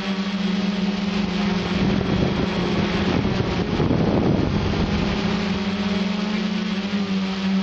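Quadcopter's electric motors and propellers humming at a steady pitch in flight. A rushing, wind-like noise swells over the hum about two seconds in and fades out a couple of seconds later.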